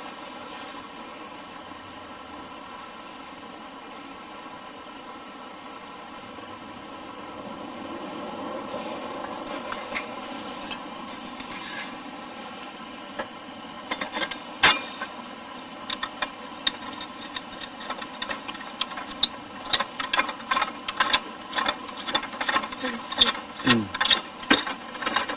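Cooking utensils and dishes clinking, tapping and scraping, in scattered strokes that grow busier in the second half, with one sharper knock midway, over a steady background hiss.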